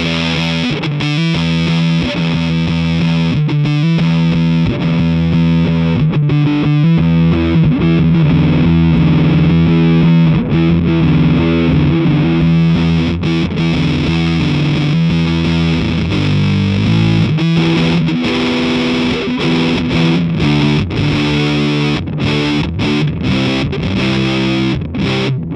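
Heavy fuzz-distorted electric guitar riffing from a Dean Razorback ML played through a Vick Audio '73 Ram's Head fuzz pedal into a Marshall JCM 800 combo amp. The chords ring on and then turn to short, stop-start stabs near the end.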